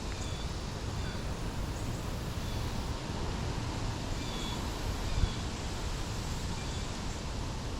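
Birds chirping in short, high calls about once a second, over a steady low rumble of outdoor background noise.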